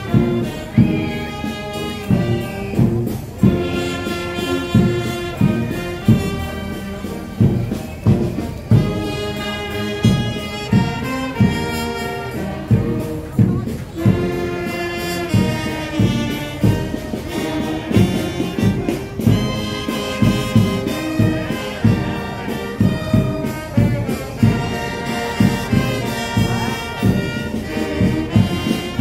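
Brass band playing processional music, held chords of trumpets and trombones over a steady drum beat.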